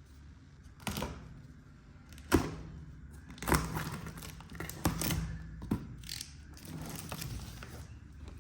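Small plastic toy kitchen pieces and their packaging being handled, with irregular clicks and knocks, about five sharper ones spread through.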